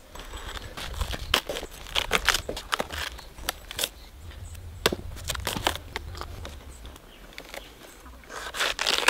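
Fibrous layers and leaf sheaths of a felled coconut palm trunk being torn and pulled apart by hand: irregular crackling, snapping and ripping of stringy palm fibre, with a louder burst of tearing near the end.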